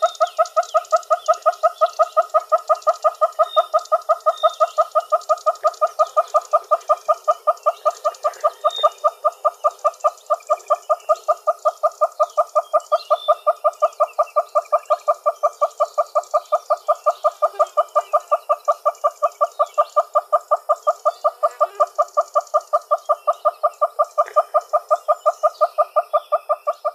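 Red-billed hornbill calling: a long, even series of clucking notes, about three to four a second, kept up without a break.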